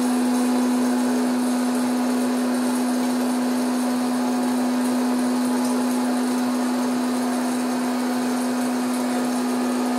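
Silvercrest 1200 W hot-air popcorn maker running: its fan blows a steady rush of hot air over a constant motor hum. The popping is all but over, and the machine is left running so the butter in the cup on top can finish melting.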